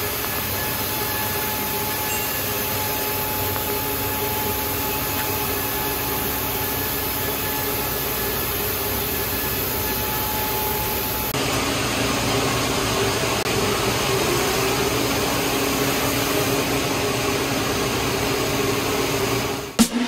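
Open-width single jersey circular knitting machine running steadily, a continuous mechanical whirr and hiss with faint steady tones. About eleven seconds in, the sound turns a little louder and brighter.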